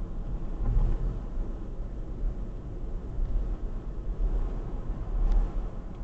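Steady low rumble of a car driving along the road, heard from inside the cabin: tyre and engine noise.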